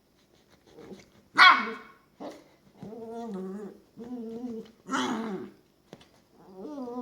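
Longhair miniature dachshund puppy's play noises: a sharp yip about a second and a half in, then a string of short growly grumbles, with another yip about five seconds in.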